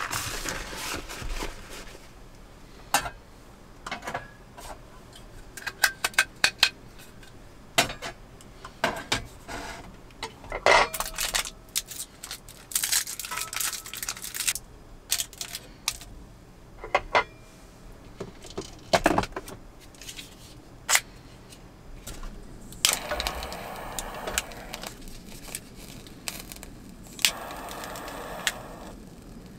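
Scattered small clicks, taps and rustles of hands handling a folding pocket stove, foil and a solid fuel tablet on a wooden table. In the last seconds come two spells of steady hiss, a gas lighter being held to light the fuel tablet.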